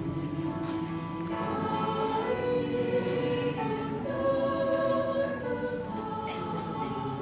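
Church choir singing a hymn of praise in several parts, holding long notes and moving to a new chord every second or so.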